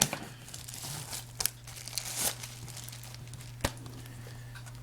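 DVD box-set packaging crinkling and rustling as it is handled and opened, in scattered short bursts, with a sharp click about three and a half seconds in. A steady low hum runs underneath.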